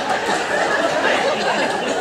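Audience laughing and chattering after a joke, easing off slightly toward the end.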